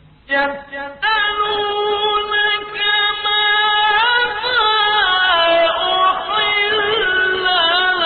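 A male Qur'an reciter chanting verses in slow, melodic tajweed, holding long ornamented notes that bend and waver in pitch. The voice comes in about a third of a second in, after a brief near-quiet pause.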